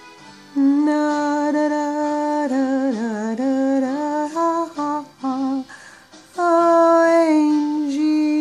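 Wordless humming of a slow melody: long held notes with small pitch slides, breaking off briefly about five and a half seconds in before the next phrase.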